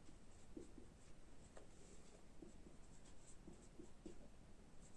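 A felt-tip marker writing on a whiteboard: faint, short squeaks and taps of the pen strokes.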